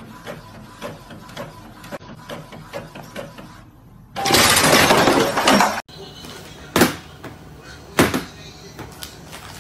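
A printer printing, with regular ticks about twice a second as the page feeds out. About four seconds in, a very loud crash-like noise lasts about a second and a half and cuts off suddenly, followed by a few sharp knocks.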